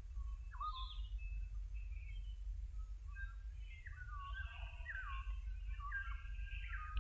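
Small birds chirping and calling in short whistled notes and quick slurs, sparse at first and more frequent in the second half, over a steady low rumble.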